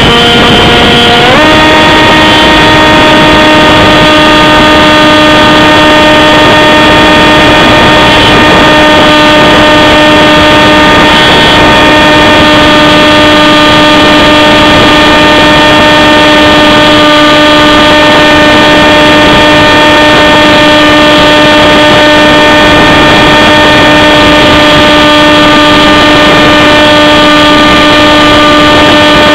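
RC model airplane's motor running steadily at high throttle, heard loud and close from the onboard camera; its pitch shifts about a second in, then holds a steady drone.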